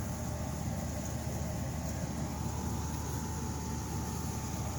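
Steady low background rumble with a faint constant hum and no distinct events.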